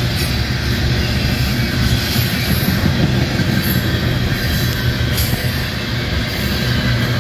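Coal train gondola cars rolling past on the near track: a steady rumble of steel wheels on rail.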